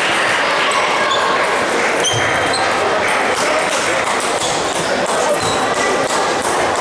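Table tennis balls clicking off bats and table in a rally, with more clicks from other games in a large, echoing hall over steady crowd chatter.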